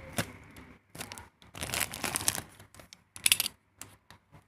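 Parcel packaging being handled and opened: irregular crinkling and rustling with sharp clicks, in a few separate bursts, the loudest about three-quarters of the way through.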